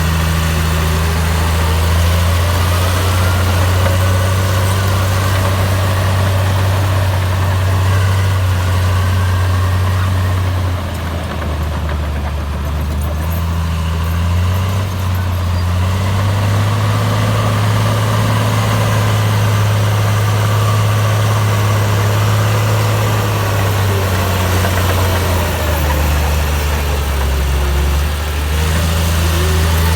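Komatsu bulldozer's diesel engine running, its low note shifting down and back up a few times as the load changes, with a fainter higher whine gliding up and down.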